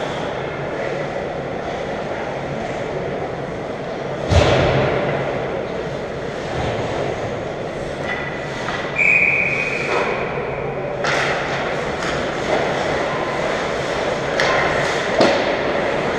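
Ice hockey game sounds in an indoor rink: a steady hum of arena noise and skating, with a loud thud about four seconds in and a few lighter stick and puck knocks. A short, steady, high whistle-like tone sounds about nine seconds in.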